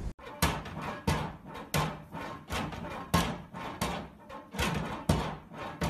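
A plastic cat flap in a door knocking and clacking repeatedly as a cat bats at it with its paw, about two sharp knocks a second at an uneven pace.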